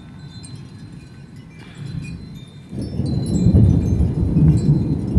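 Wind chimes ringing with scattered high tones; a little past halfway, a loud low rumble of thunder comes in and keeps going.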